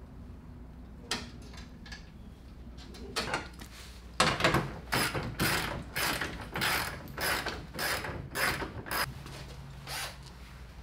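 A hand tool worked in short rasping strokes, about two to three a second for some five seconds, starting about four seconds in, after a few isolated clicks.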